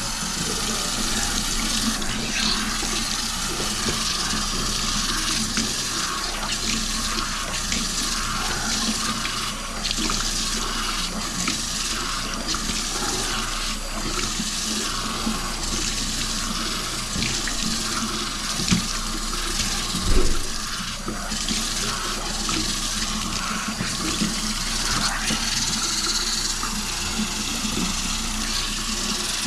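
Kitchen faucet running into a stainless steel sink while a coiled drain-cleaning cable is rinsed under it. A steady water hiss, with a few knocks about two-thirds of the way through.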